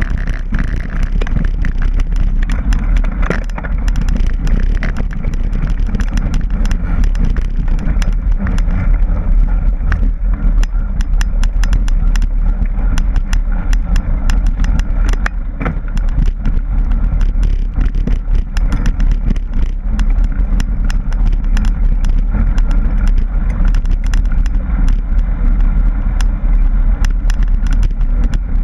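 Mountain bike rolling over a rough dirt and gravel trail: a steady low rumble of wind on the microphone, with constant clicking and rattling as the wheels hit stones and bumps.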